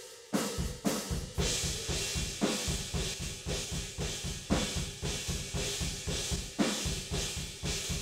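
Recorded rock drum kit playing a fast pattern, heard through its room-microphone track: rapid bass-drum strokes, snare hits about twice a second, and a wash of cymbals. The room track runs through an expander keyed to the snare frequencies, so the snare comes up above the cymbals each time it is struck.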